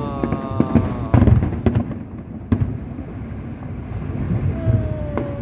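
Fireworks display: sharp bangs bursting over a steady low rumble, most of them close together in the first two seconds, with single bangs about halfway through and near the end.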